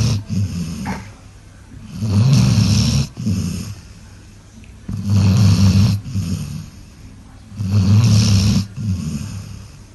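A sleeping dog snoring, one long snore about every three seconds. Each snore is a low rumble with a breathy hiss over it.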